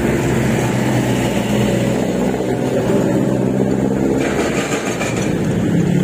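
Road traffic passing close by: car and motorcycle engines running in the adjacent lanes, with a steady low engine drone throughout.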